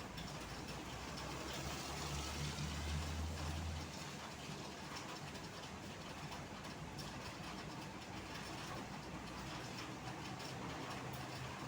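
Road traffic in heavy rain: a steady hiss of rain and wet tyres, with a large vehicle's engine running loudly as it passes a couple of seconds in, then a lower engine hum.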